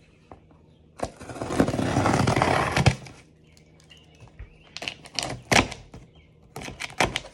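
A gift package being torn open by hand: a long tearing of the wrapping from about one to three seconds in, then scattered sharp crackles and snaps as the packaging is pulled apart.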